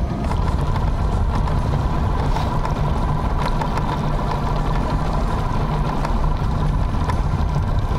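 Boat outboard motor running at a steady speed: a continuous low drone with a steady high whine over it.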